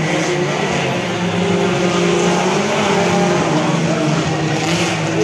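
Racing car engines running together, several engine notes overlapping and rising and falling in pitch.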